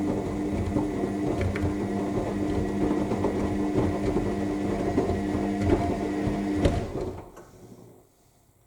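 AEG 7000 Series washing machine's drum tumbling in the main wash: steady motor hum and whine with laundry knocking in the drum. About seven seconds in the motor stops and the drum winds down to a pause between tumbles.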